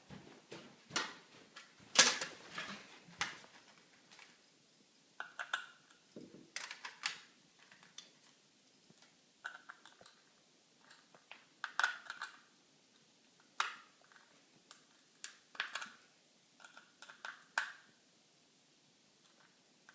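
Scattered clicks, taps and short scrapes of hard plastic being handled and worked at with a screwdriver, some coming in quick clusters, with quiet gaps between.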